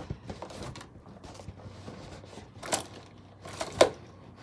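Small clicks and light rattles of makeup items being handled, with two sharper clicks about a second apart in the second half.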